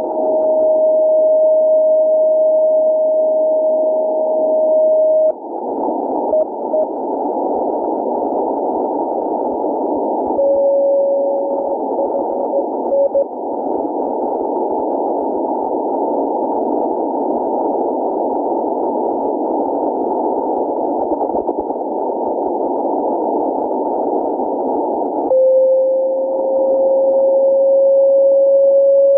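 Receiver audio of fishing-buoy radio beacons on the 10-metre amateur band, heard in CW mode over steady band-limited receiver hiss. A steady carrier tone holds for about five seconds and then a few short Morse beeps follow. About ten seconds in, a slightly lower tone keys short Morse beeps, and near the end a new carrier starts and slides slowly up in pitch: the frequency drift typical of these crudely built beacons.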